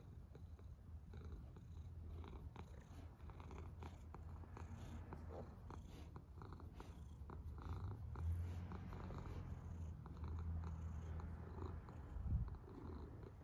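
A domestic cat purring steadily at close range while its belly is stroked, with faint clicks over it and a low thump near the end.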